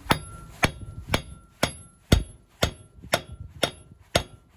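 Hammer striking a steel nut threaded onto the end of a front drive shaft, in nine even blows at about two a second, each with a short metallic ring. The blows are pushing the CV joint shaft out through the wheel hub.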